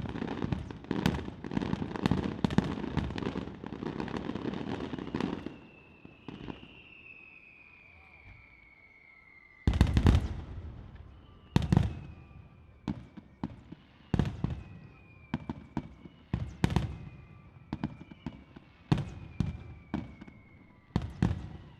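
Aerial fireworks display: a dense run of bangs and crackle for about five seconds, then long whistles that slowly fall in pitch, a heavy boom about ten seconds in, and a string of sharp bangs, each followed by a falling whistle.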